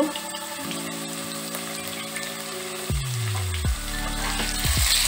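Cubed potatoes sizzling as they fry in hot mustard oil in a nonstick wok. From about three seconds in, a wooden spatula knocks and scrapes against the pan as they are stirred, and the sizzle grows louder toward the end.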